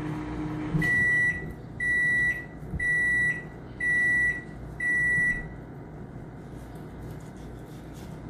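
Microwave oven finishing its cycle: its running hum cuts off, then five high electronic beeps follow, about one a second.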